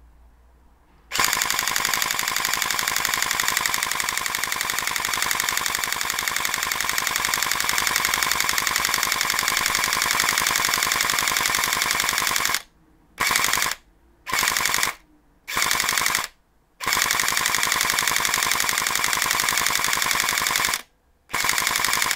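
Airsoft gun firing on full auto: one long unbroken burst of about eleven seconds, then several short bursts of under a second to four seconds each, with brief pauses between them.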